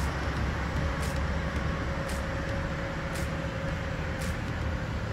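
Steady low rumble of distant highway traffic, with a faint steady hum over it and a faint high tick about once a second.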